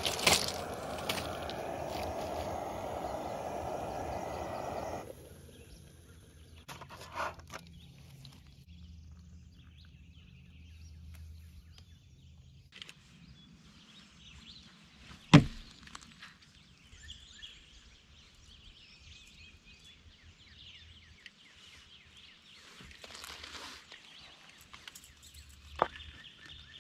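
A Jetboil camp stove's gas burner hissing steadily, cut off abruptly about five seconds in. Then faint outdoor quiet with light handling and footsteps on river gravel beside a kayak, broken by one sharp knock in the middle and a smaller click near the end.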